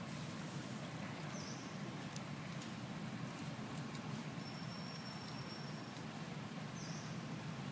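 Steady low outdoor background rumble, with a couple of faint high chirps and a thin high whistle held for about a second and a half past the middle.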